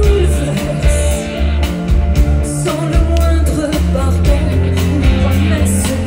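Live pop-rock band playing loud through a concert PA: a woman singing lead into a microphone over drums, bass guitar and keyboards, with heavy bass.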